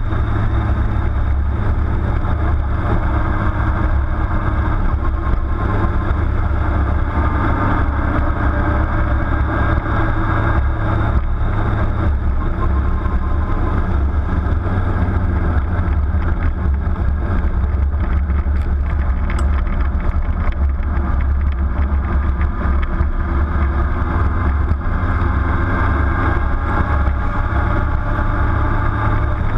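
Steady low rumble of a vehicle driving at a constant pace, with its engine and road noise picked up by a camera mounted on the vehicle.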